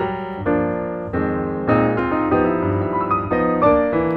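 Background piano music with notes struck at a steady pace.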